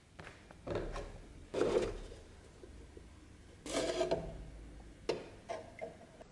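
Handling noises as the steel round-knife blade is lifted out of rust-remover liquid in a cut-down plastic bottle: a few short knocks and scrapes of plastic and metal, loudest about a second and a half in and again near four seconds.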